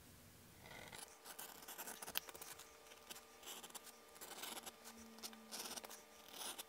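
Edge beveler (a No. 3 Craft Tool edger) shaving the edges of veg-tan leather, a run of quick, faint scraping strokes.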